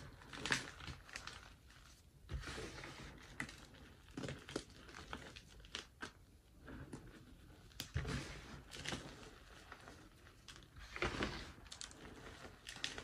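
Hands squeezing and crumbling a heap of powdered gym chalk (magnesium carbonate) in a metal tray, making irregular soft crunches and rustles that come in clusters as the hands clench and release.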